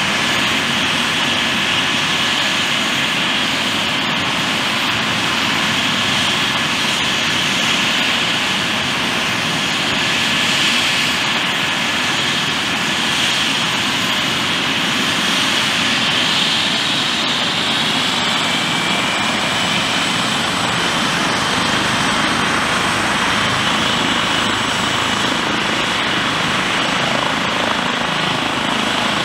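Eurocopter EC135 helicopter running on the ground, its twin turbines whining steadily over the rush of the turning main rotor and fenestron. A second, higher whine joins about two-thirds of the way through.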